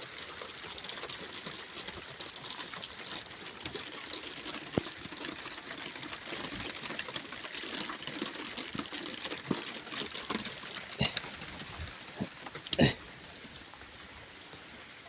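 Steady rain falling, with scattered sharp taps of raindrops hitting the wet phone's microphone, the loudest about 13 seconds in.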